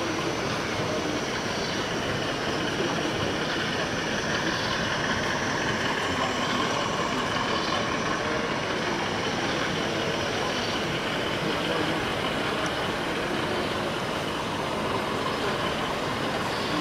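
Steady, even background din of a large, busy exhibition hall.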